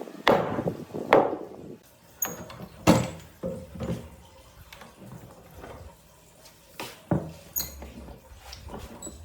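Irregular knocks and clunks with some scraping between them. The sharpest strikes come about a second in and near three seconds in.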